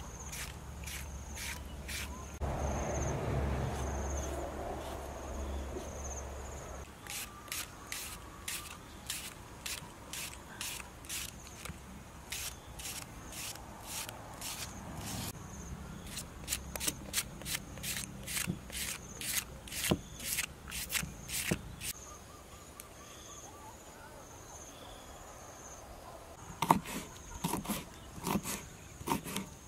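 Knife slicing vegetables held in the hand: a string of crisp ticks as the blade cuts through tomato and onion, then in the last few seconds quicker, heavier knocks of a knife chopping red chillies on a wooden chopping board. Insects chirp steadily behind.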